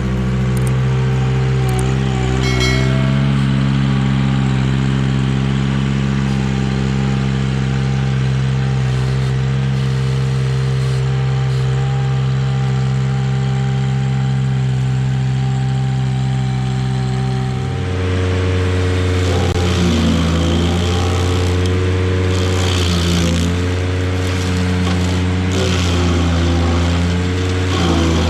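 Ventrac 4500Z compact tractor's engine running steadily at high speed. About two-thirds of the way through its pitch drops, and after that it wavers up and down as the engine takes a changing load.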